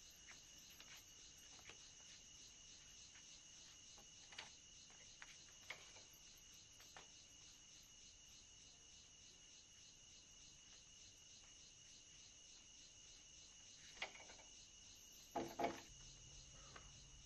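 Near silence with faint, steady cricket chirring as a night-time background, broken by a few soft clicks and a louder double knock about fifteen seconds in.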